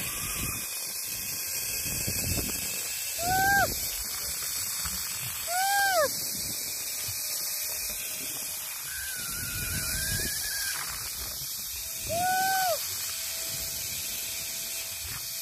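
Zipline trolley whirring along the cable, with wind rushing over the microphone. A rider lets out short exclamations that rise and fall in pitch, about three, six and twelve seconds in, and a longer wavering one around nine to ten seconds.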